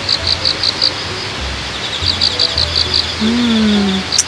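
Crickets chirping in short, even trills of high, rapid pulses, about one trill a second.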